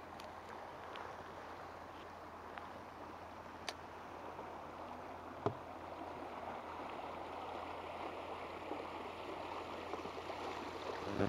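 River current rushing and gurgling around a navigation buoy and along an inflatable boat's hull, slowly growing louder as the boat drifts toward the buoy, with a couple of light knocks.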